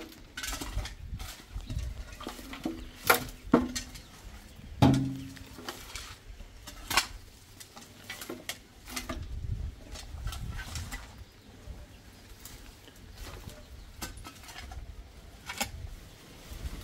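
Shovels scraping the ground and tipping loose straw and dirt into a metal wheelbarrow, in irregular scrapes and knocks, with a few sharper clanks about three to five seconds in, the last one ringing briefly.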